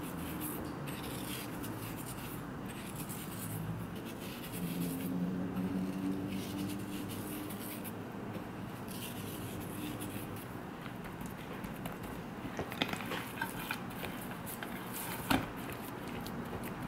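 Coarse salt sprinkled over a raw chicken thigh on a ceramic plate, then hands rubbing the salt into the wet skin. In the second half come a run of sharp clicks and taps against the plate, the loudest one about three-quarters of the way through.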